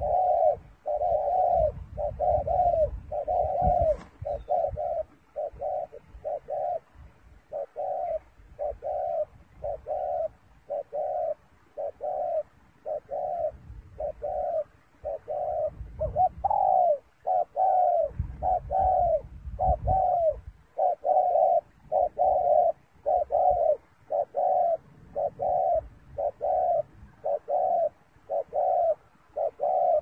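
Spotted dove cooing rapidly: an unbroken run of short, evenly spaced coo notes, about one and a half a second.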